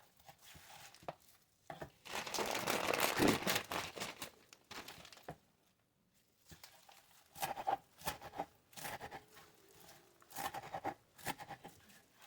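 Food packaging crinkling and tearing, loudest in a dense rustle about two seconds in, then short scattered rustles and clicks.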